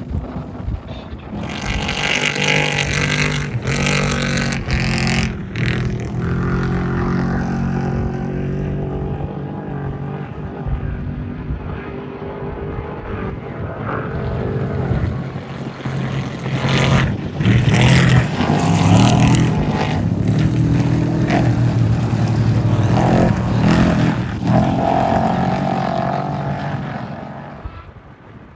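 Off-road race vehicles' engines running hard, the revs rising and falling. Vehicles come through about two to six seconds in and again, louder, from about sixteen to twenty-six seconds, then the sound fades near the end.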